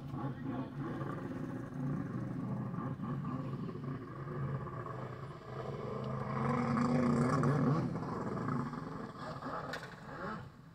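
Jet ski engine revving out on the water, its pitch rising and falling as the rider throws the craft around. It is loudest about two-thirds of the way through.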